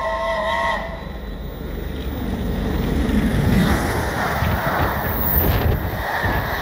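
Britannia class steam locomotive 70000 passing at speed. Its whistle sounds for the first moment and cuts off. Then the loud rush of the locomotive and the clatter of its coaches going by build up, loudest about three and a half seconds in.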